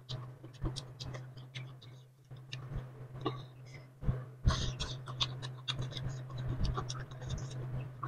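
Close-miked chewing of boiled bamboo shoots, with many irregular soft crunches, wet clicks and lip smacks, over a steady low hum.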